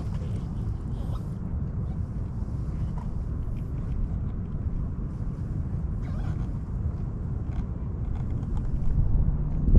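Wind buffeting the microphone, a steady low rumble, with a few faint taps.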